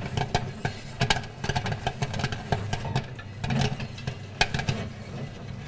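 Popcorn kernels popping in the hot kettle of a Royal Catering RCPS-16EB popcorn machine, irregular pops thinning out over a steady low hum from the running machine: the popping is dying down, the sign that the batch is almost done.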